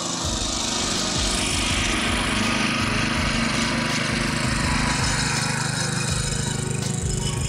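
The Magnus BKM-8/1000 NV cultivator's 8 hp, 208 cc single-cylinder four-stroke OHV air-cooled engine running steadily at idle, warming up just after starting.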